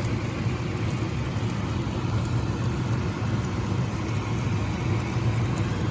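Milkfish frying in oil: a steady sizzle over a low rumble.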